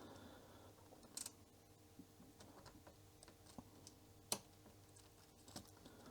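Near silence broken by a few faint clicks and taps of plastic as the glued calculator case is handled and pried apart, the clearest about a second in and a little past four seconds.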